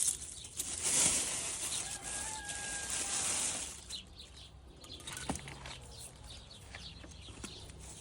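Rustling of leafy plant stems being handled, loudest for about three seconds near the start, then softer with a few light clicks.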